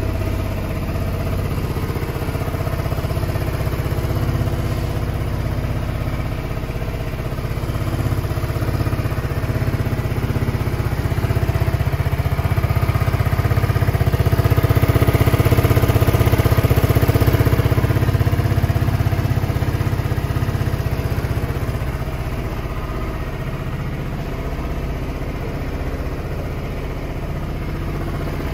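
Yamaha Vity 125 scooter's fuel-injected, air-cooled four-stroke 125cc single-cylinder engine idling steadily. It grows louder around the middle, peaking as the exhaust is close, then eases back.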